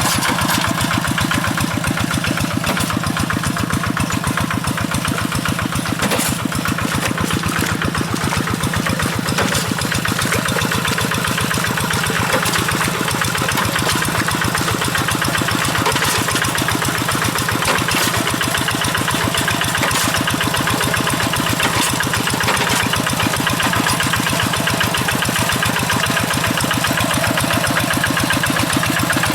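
Kubota RD85 DI-2S single-cylinder diesel engine of a Quick G1000 hand tractor running steadily, its firing pulses rapid and even.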